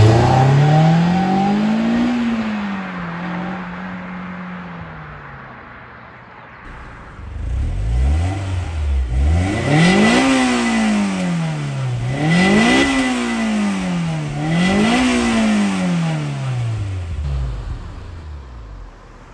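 2006 Honda S2000's 2.2-litre four-cylinder engine: first the car accelerates past and its note fades away, then, parked, the engine is revved three times, each rev climbing and dropping back.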